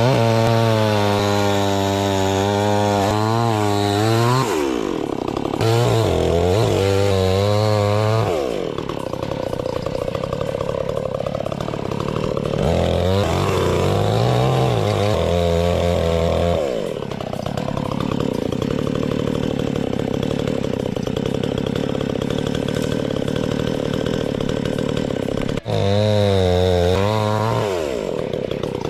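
Cheap Chinese two-stroke chainsaw run at full throttle in high-pitched bursts, dropping back briefly between them. Through the middle stretch its pitch sinks and wavers as it is loaded, cutting into a log, before a last high-revving burst near the end.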